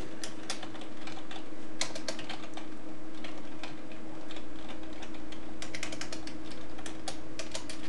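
Computer keyboard keys clicking as a word is typed, in irregular clusters of keystrokes, over a steady low hum.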